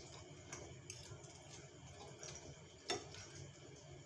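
Faint clicks of a metal fork knocking against a frying pan as lumpia are turned, with one sharper click about three seconds in.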